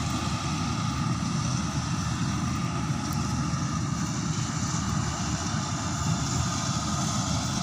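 Engine of harvest farm machinery running steadily, a constant low rumble with a faint steady whine above it.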